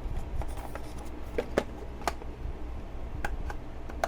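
A few separate light clicks and taps from handling product boxes and packaging during an unboxing. The sharpest come about a second and a half to two seconds in.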